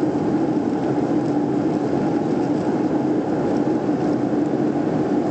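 Airliner cabin noise in flight, heard inside the cabin: a steady drone of engines and rushing air with an even hum.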